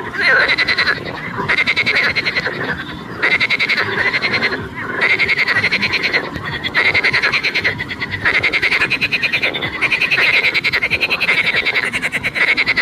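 Frog calling: about eight rapid, buzzy trilled croaks, each a second or so long, with short gaps between them.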